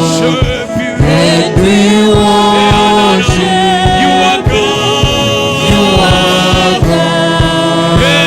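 Gospel worship music: singing with long, wavering held notes over sustained chords and a steady beat.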